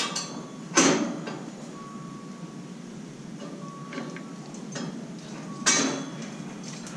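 Two loud metallic clanks, about a second in and again near the end, with lighter clinks between them, as of steel scaffold tubes and fittings being knocked.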